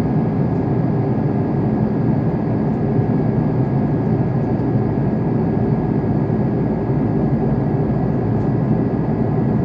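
Steady cabin noise of an Airbus A330-300 in flight: an even engine and airflow roar with a faint steady whine above it.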